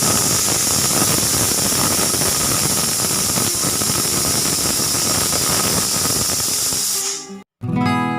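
Pressure cooker whistle venting steam: a loud, steady hiss with a faint whistling tone, which dies away about seven seconds in. Acoustic guitar music starts just before the end.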